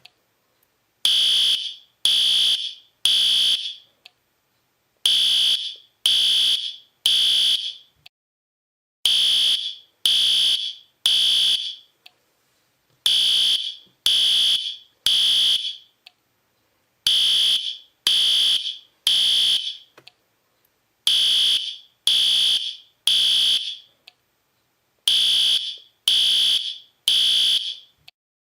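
Fire alarm sounding the temporal-three evacuation pattern: three short, high-pitched beeps, then a pause, repeating about every four seconds.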